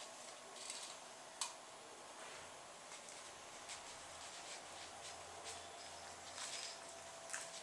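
Faint rustling of hands handling fabric and a piece of velcro, pressing it into place on a cloth strap, with two small sharp clicks, about a second and a half in and near the end.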